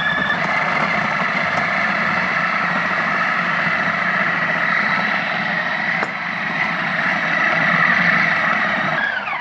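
Electric kitchen machine running at high speed, mixing and kneading pizza dough. Its motor whine rises as it spins up, holds steady, then falls away as it is switched off near the end.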